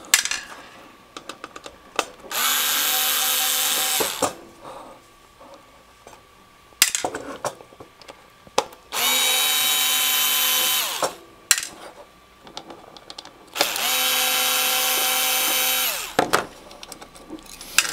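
A power screwdriver running in three bursts of about two seconds each, spinning up and winding down, backing screws out of an antenna analyzer's case. Light clicks of handling come between the bursts.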